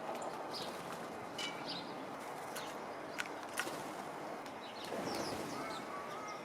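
Scattered sharp crunching clicks of seeds and nuts being cracked at a bird feeder, with short high chirps of small birds. A thin squeaking sound comes in near the end.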